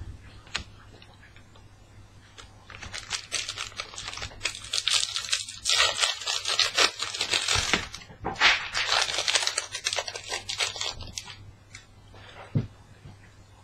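The wrapper of a Panini Adrenalyn XL trading-card pack being torn open and handled. It comes in two stretches of crinkly rustling a few seconds each, with a short pause between them and a couple of single clicks around them.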